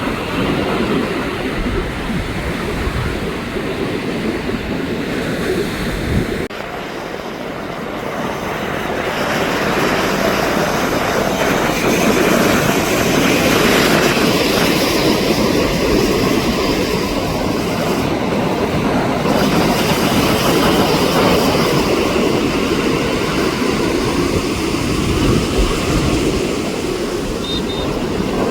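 Jet airliner flying over, its engine noise a steady rushing sound that grows louder about eight to twelve seconds in and then holds.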